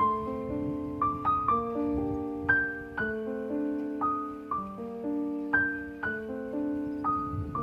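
Background piano music: a slow, gentle melody of struck notes over sustained chords.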